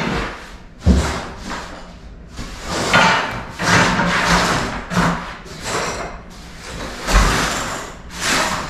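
A long-handled scraper prying stapled wooden carpet strips off the subfloor. It makes a series of harsh scrapes and knocks as each strip is levered and cracks free, and a few strokes end in a low thud, notably about a second in and about seven seconds in.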